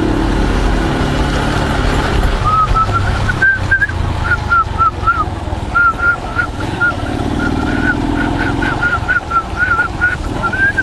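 Steady low rumble of a motorcycle ride in heavy rain: engine and wind noise. From about two seconds in, a quick series of short, high chirping tones rises and falls over it.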